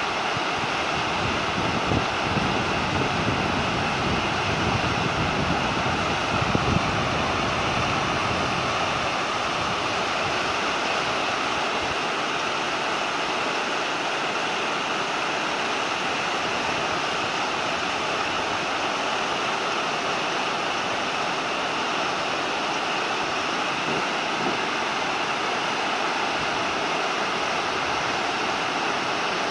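River water pouring over a weir crest and churning white below it, a steady, unbroken rushing. For about the first twelve seconds a deeper rumble sits underneath, then it fades.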